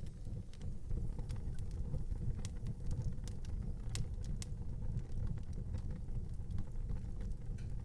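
Wood fire burning in an outdoor fireplace: a steady low rumble with frequent sharp crackles and pops of burning wood.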